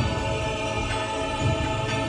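Music with held, sustained tones over a deep pulse that recurs every second or so.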